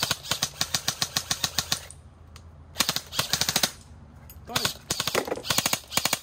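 Airsoft M4-style rifles firing rapid strings of shots, about ten a second, in three groups: a long run for the first two seconds, a short burst around three seconds in, and more bursts from about four and a half seconds on.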